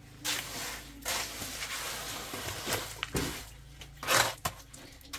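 Pots and utensils being handled, several short clattering and scraping sounds with a few sharp clicks, the longest about three and four seconds in.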